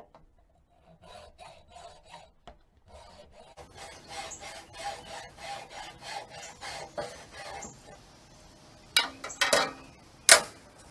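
Hacksaw cutting through a raised-bed stacking stake in repeated back-and-forth rasping strokes, followed near the end by a few sharp knocks.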